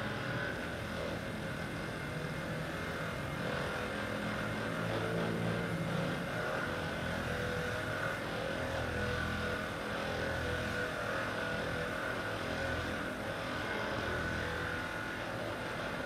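Hypervolt percussive massage gun running on a patient's back muscles: a steady motor whine over a low buzz that shifts up and down in pitch every second or two.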